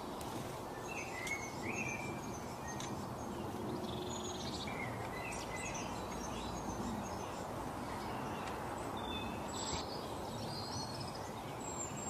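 Small songbirds chirping and twittering in short, scattered calls over a steady low background rumble.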